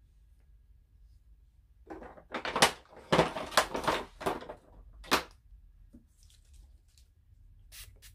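Makeup products and containers being rummaged through and handled: a couple of seconds of clattering knocks and rustles, then a sharp click and a few lighter taps as a plastic spray bottle is picked up.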